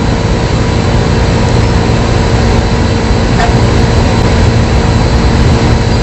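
Car engine idling: a steady low rumble with a constant hum over it.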